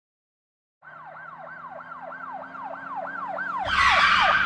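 Emergency-vehicle siren in a fast yelp, a falling wail repeating about three times a second, starting about a second in and growing louder. From about three and a half seconds in, a loud rushing noise joins it.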